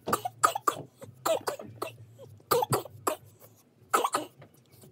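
A boy coughing repeatedly, short harsh coughs in quick groups of two or three, set off by the Takis seasoning powder he has licked off his fingers.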